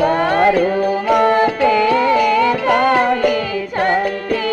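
Odia verses sung as the musical accompaniment to a Ravana Chhaya shadow-puppet play: a single voice with melodic turns over a steady held drone, with a few short percussion strikes.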